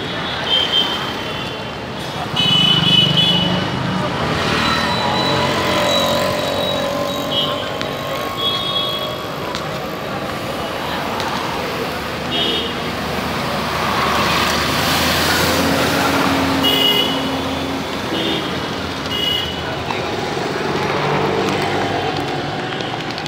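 Steady street traffic noise, with short high-pitched tones sounding several times.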